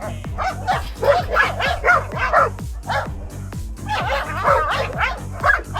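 Background music with a fast beat, with a dog's short yips and whines over it.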